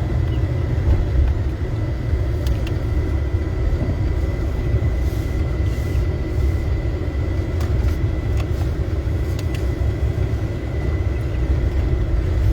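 Car driving, heard from inside the cabin: a steady low road and engine rumble with a faint steady whine above it and a few light ticks.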